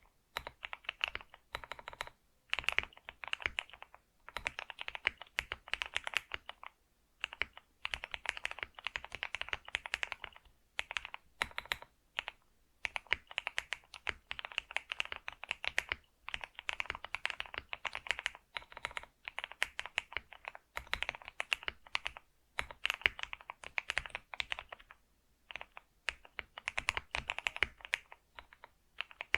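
Computer keyboard being typed on in quick runs of keystrokes, a second or two at a time, broken by brief pauses.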